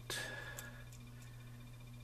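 Fingers handling tiny plastic model-railroad parts: a short rustle at the start, then a few faint small clicks, over a steady low hum.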